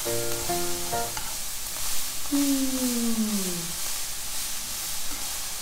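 Cabbage and meat stir-frying in a frying pan, sizzling steadily as they are stirred. A few short musical tones sound in the first second, and a single tone slides down in pitch around the middle.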